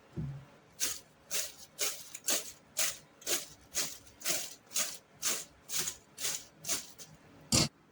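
Crispy fried potato snacks being bitten and chewed, a dull bite then about fourteen sharp crunches at an even pace of two a second, the last one louder.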